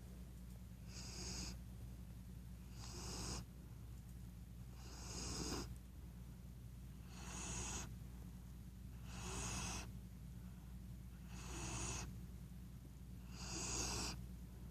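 Labrador puppy snoring in its sleep: an airy, hissing snore about once every two seconds, seven in a row.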